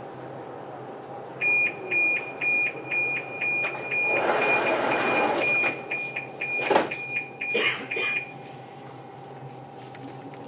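Electronic warning beeper sounding short high beeps, about three a second, starting about a second and a half in and stopping about eight seconds in, over the steady hum of a metro station platform. A brief rush of noise and a few sharp knocks come in the middle.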